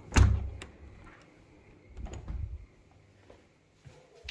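A wooden, glass-panelled door being pushed open: a sharp latch click and thump, a second click just after, then a softer knock about two seconds in.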